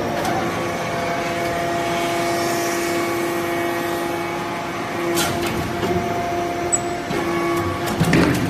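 Hydraulic baler for metal shavings running with a steady machine hum, with a short knock about halfway through and another near the end.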